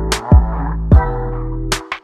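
Electronic hip-hop style music: deep kick drums that drop in pitch, sharp high hits between them, and held synth chords underneath.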